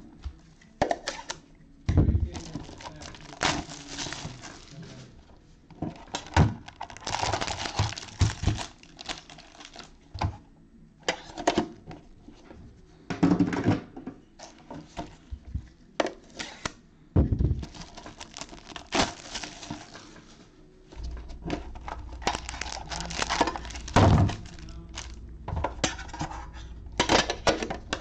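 Metal trading-card tins being handled and opened: irregular knocks and clatters of the tins, with crinkling and tearing of plastic shrink-wrap as the packs are taken out.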